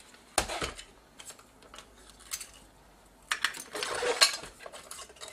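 Handling noise from a partly disassembled Sony PMW-EX1 camcorder: clicks, knocks and rattles of its plastic and metal parts as it is picked up and turned over. A sharp knock comes about half a second in, and a busier cluster of knocks and rattles about three seconds in.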